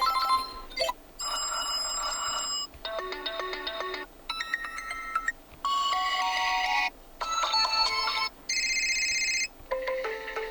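TCL 408 smartphone's default ringtones previewed one after another: about eight short electronic melodies, each cut off after a second or so, with brief gaps between them.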